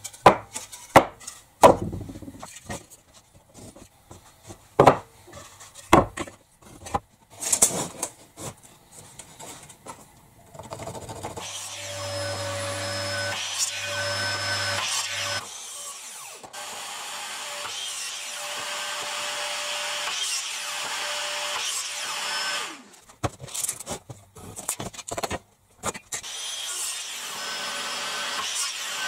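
Wooden boards knocked and set down on a wooden workbench, then a Metabo mitre saw runs and cuts through a wooden board for about ten seconds midway, steady with a fixed whine. Further knocks of wood being handled follow.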